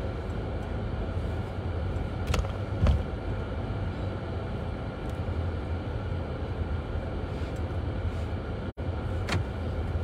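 Steady low rumble of a car's engine and tyres on a snow-covered road, heard inside the cabin, with a few short sharp clicks.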